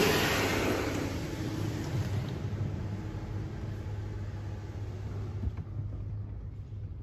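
A WashWorld Razor Edge touchless car wash working on the car, heard from inside the cabin. A loud rushing noise fades away over the first couple of seconds and leaves a steady low hum.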